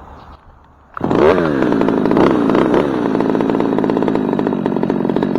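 Chainsaw starting up about a second in, revving, then running steadily at high throttle.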